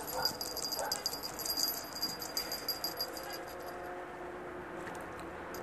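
Small bell on a cat's collar jingling rapidly as the cat scratches itself with a hind paw. It stops about three and a half seconds in.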